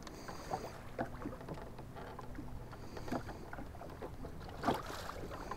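Small waves slapping against the hull of a fishing boat in scattered light knocks, over a faint steady low hum.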